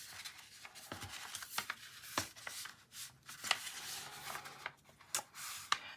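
Sheets of paper being folded in half and creased by hand: faint rustling with scattered light taps and clicks.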